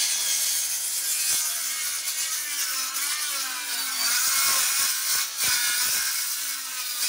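Handheld circular saw cutting through a plywood sheathing panel, running under load with its pitch dipping and wavering as the blade bites, then starting to wind down at the very end. The blade is a very old one.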